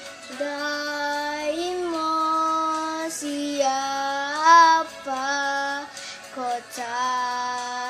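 A young girl singing an Indonesian children's song solo, with long held notes and small slides between them and a brief break for breath a little past the middle.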